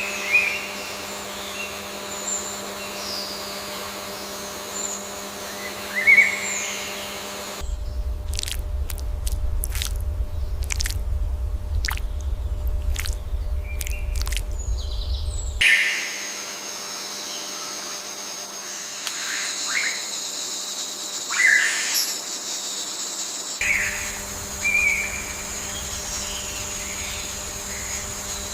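Songbirds chirping and calling in short whistled phrases over a steady low hum. For about eight seconds in the middle the birdsong gives way to a low rumble with sharp clicks, then the chirping returns.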